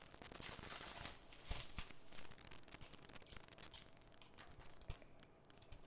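Faint tearing and crinkling of plastic shrink-wrap being pulled off a steelbook case, with small clicks of the wrap and case. It is busiest in the first two seconds.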